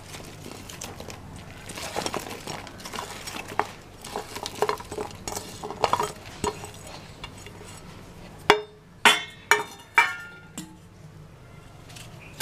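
Utensil clatter: a spoon stirring and scraping in a metal pot or bowl with small clicks. About two-thirds of the way through come four or five sharp, ringing clinks of metal striking metal.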